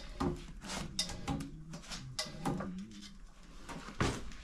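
Stunt scooters knocking and clattering on a wooden floor as riders hop and land tricks, with a louder knock about four seconds in.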